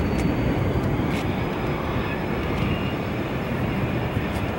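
Airbus A380-800's four jet engines on landing approach: a distant, steady low rumble.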